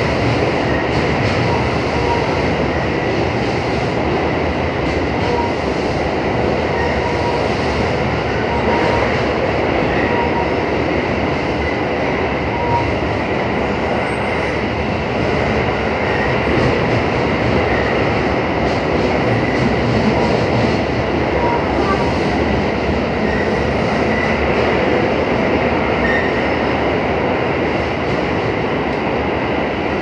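Steady running noise of a JR West 221 series electric train heard from inside the car: wheels rumbling on the rails, with a faint steady high tone over it, at a speed restricted for a typhoon.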